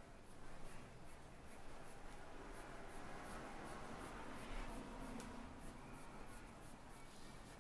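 Pencil strokes scratching on drawing paper: quick, light, repeated shading strokes, about two or three a second.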